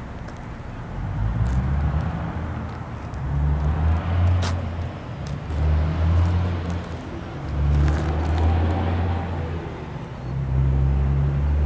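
Empty intermodal well cars of a freight train rolling past close by, the wheels and trucks making a low rumble that swells and fades every couple of seconds, with a few sharp clanks.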